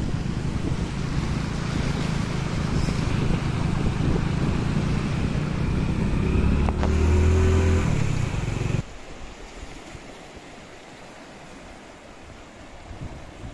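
A motor vehicle engine running close by over a loud rushing noise of wind and water, with a stronger low engine note near the middle. About nine seconds in it cuts off abruptly to a much quieter steady wind hiss.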